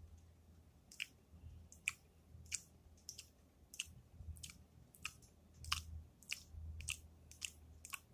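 A person chewing crunchy food close to the microphone, with irregular crunches about one and a half per second.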